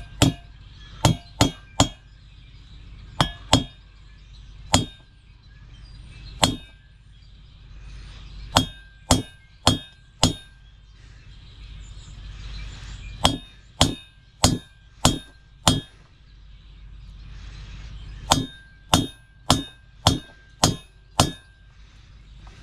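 Ball-peen hammer striking an old bearing used as a driver, tapping a new pre-packed bearing into a Suzuki V-Strom 1000's rear wheel hub. About two dozen sharp metal-on-metal strikes, each with a brief ring, come in bursts of a few quick blows separated by short pauses.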